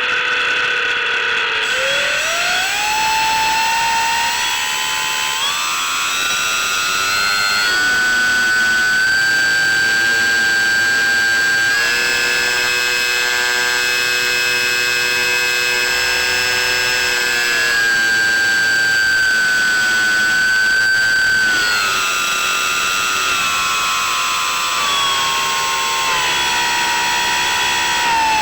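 C1 Chaser model plane's electric motor and propeller whining under throttle. The pitch climbs steadily over the first several seconds, holds high through the middle, then falls away in steps toward the end as the throttle comes back.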